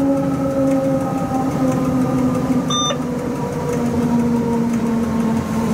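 Inside the cab of a Rhaetian Railway Ge 6/6 II electric locomotive running downhill: a steady whine from its drive, several tones slowly falling in pitch, over the rumble of the running gear. A short high beep sounds about three seconds in.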